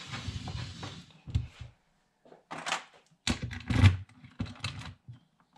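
Wooden tool chest dragged and turned on the bench with a rubbing slide, then a string of clicks and knocks from its front-panel lock and hardware, the loudest knock about four seconds in.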